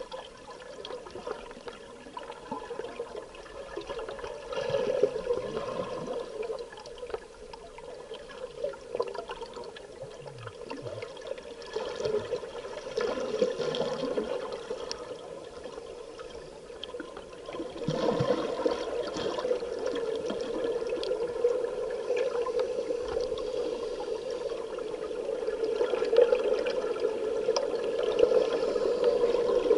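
Scuba divers' exhaled bubbles burbling from a regulator underwater, rising in swells every six or seven seconds with each breath, louder in the second half.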